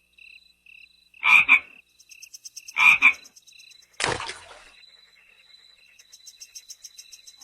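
Frogs calling: short high chirps about three a second, with two loud double croaks about one and three seconds in. A sudden sharp sound comes about four seconds in and fades quickly.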